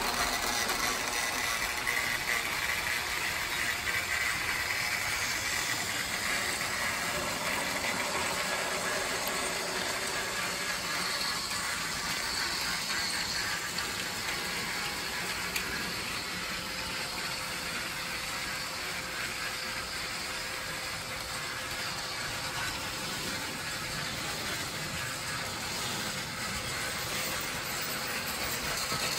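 Battery-powered TrackMaster Duck toy train running steadily, its small electric motor and plastic gears driving it along the track as it pulls coaches. It gets a little fainter midway and louder again near the end.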